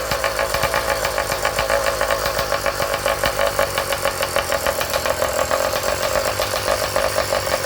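Motorized bicycle's small engine idling steadily with an even, rapid pulse.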